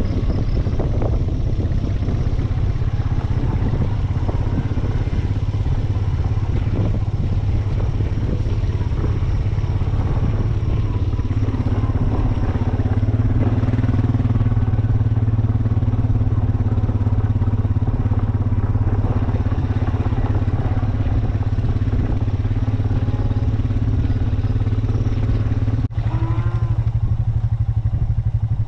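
A vehicle engine running steadily with an even, unchanging hum, heard close to the microphone. The sound cuts briefly and resumes a couple of seconds before the end.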